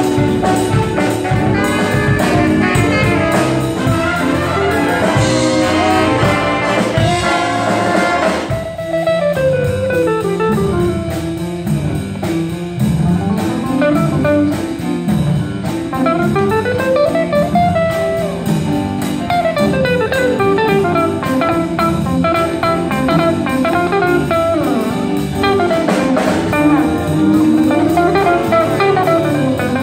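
Jazz big band playing, horns and drum kit together; about eight and a half seconds in the horns drop out and a hollow-body electric guitar takes a solo of quick single-note runs rising and falling over the rhythm section.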